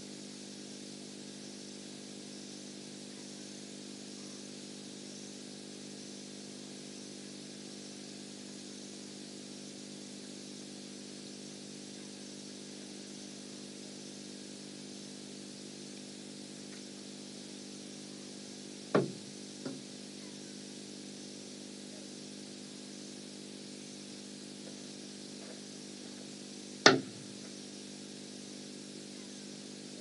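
A steady low hum made of several pitches under a hiss, broken about two-thirds through by a sharp knock and a fainter one just after, and by a louder sharp knock near the end.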